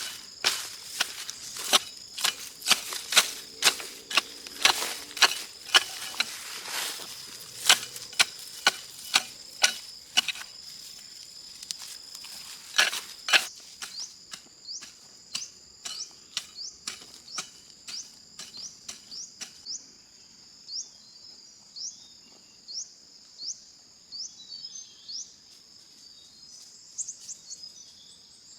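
A run of sharp knocks, about two to three a second, that thins out and fades after about half way, over a steady high insect drone. Short high chirps come in the second half.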